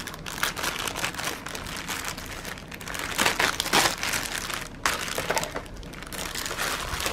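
Clear plastic shipping bag crinkling as a rolled diamond painting kit is pulled out of it, loudest about three to four seconds in.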